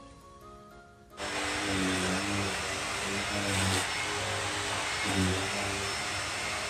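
Upright vacuum cleaner running loudly as it is pushed over plastic wrap; the motor noise starts suddenly about a second in.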